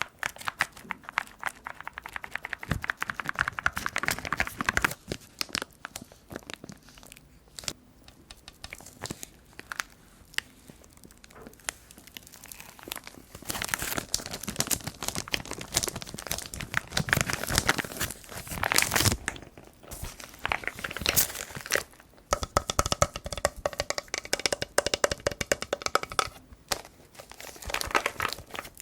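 Keyboard packaging being unwrapped by hand, with irregular bursts of crinkling, crackling and tearing and the odd tap or click.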